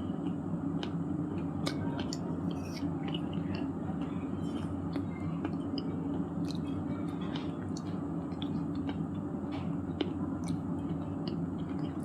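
Chewing of broken shale stone pieces: irregular sharp crunches and small clicks over a steady low background hum.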